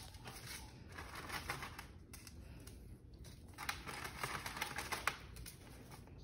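Raw chicken pieces being turned over by hand on a paper-lined counter: the paper rustles and crackles in two spells.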